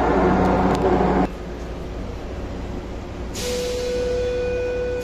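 Light-rail train: running noise inside the driver's cab cuts off about a second in. Then, with the train standing at the platform, a hiss of air starts about three seconds in, and a steady electronic tone is held over it for the last second and a half.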